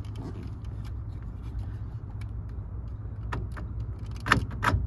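2013 Toyota RAV4 door lock actuator, fitted with a replacement 12 V DC motor, locking and unlocking: short sharp clacks in two pairs from about three seconds in, over a steady low hum. The clacks show the actuator working again with the new motor.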